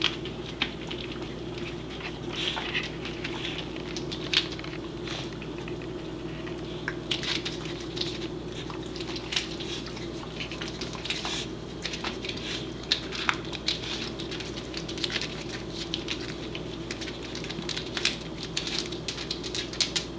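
A corgi nosing, mouthing and pawing at an egg right at the microphone: irregular small clicks, scratches and taps, coming thicker in the second half, over a steady low hum.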